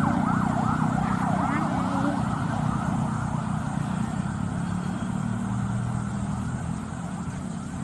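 Steady low hum of road traffic, with a fast wavering, warbling tone over the first two seconds or so that then fades.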